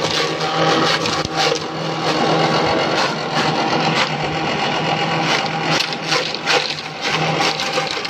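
Small forage chopper (mesin cacah) running steadily with a constant motor hum, its blades shredding cabbage fed in by hand with an irregular crackling chop as the cut pieces spray out of the outlet.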